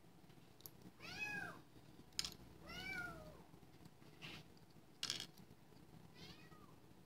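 A very young kitten meowing faintly, three short arched meows with a few seconds between them. Four sharp metallic clicks come in between, from the parts of a gutted padlock being worked by hand.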